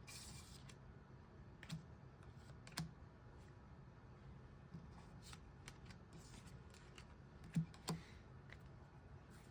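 Sparse, light clicks and taps, irregularly spaced, over faint room tone, with a short hiss right at the start. Two clicks close together a little past seven and a half seconds in are the loudest.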